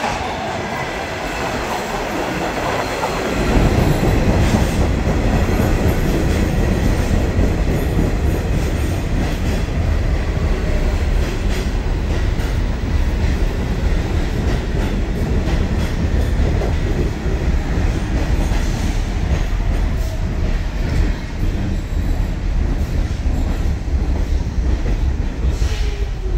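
R46 subway train pulling into an underground station and running along the platform. A heavy, steady rumble of steel wheels on the rails swells as the train comes out of the tunnel and gets much louder about three seconds in as the cars reach the platform. A faint falling whine comes in near the end.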